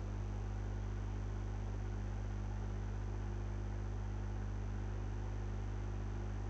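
Steady electrical hum with an even hiss from a BIQU B1 SE Plus 3D printer, powered on and idle, its cooling fans running.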